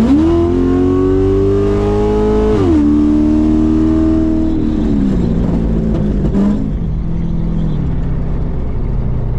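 C6 Corvette's V8, with long-tube headers and a straight-piped exhaust, accelerating hard and loud. The engine note shoots up at the start and keeps climbing, drops sharply at an upshift after about two and a half seconds, then falls lower in several steps.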